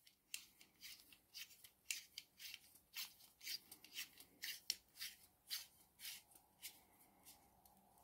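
Faint, short scratchy scrapes, two or three a second, from a USB condenser microphone being twisted in the threaded ring of its clamp mount; they stop about a second before the end.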